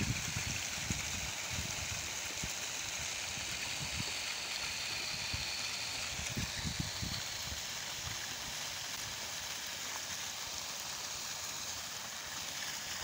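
Plastic micro sprinklers spraying water with a steady hiss, droplets pattering on the wet soil and leaves. A few low thumps near the start and again about six seconds in.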